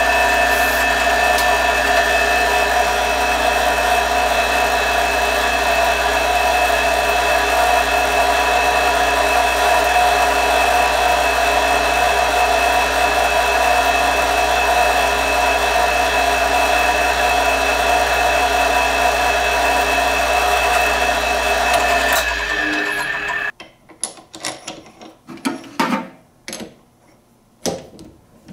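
Drill press running steadily, its bit drilling a small cross hole in a 6061 aluminium part, with a steady low hum and fixed high tones. The motor cuts off about 22 seconds in, followed by a few scattered clicks and knocks.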